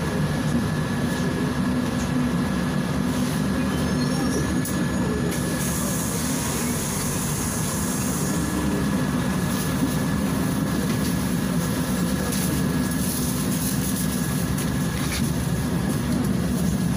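Cabin noise inside a Volgabus 5270G2 city bus under way: the steady running of its Yuchai CNG engine and driveline together with road noise, with a thin steady whine above the rumble. A hiss rises from about five seconds in and fades about three seconds later.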